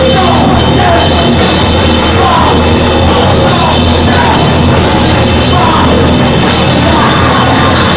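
Loud, dense rock-style music with drums and a melody line, played so hot that it is pressed flat against full scale.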